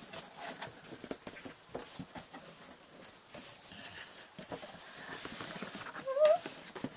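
Cardboard box flaps being pulled open and handled, with rustling, scraping and tapping of the cardboard. About six seconds in there is a brief rising squeak, the loudest sound.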